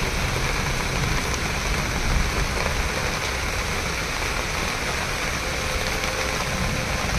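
Heavy rain pouring steadily, a constant hiss with a low rumble underneath.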